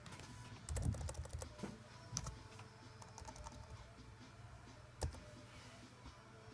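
Typing on a computer keyboard: a quick run of keystrokes about a second in, a few scattered keys after, and one sharper click about five seconds in.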